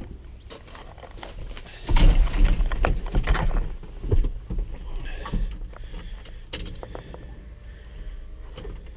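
Keys jangling and rattling along with clicks and handling noises. About two seconds in there is a loud spell of low rumbling and knocks lasting a couple of seconds.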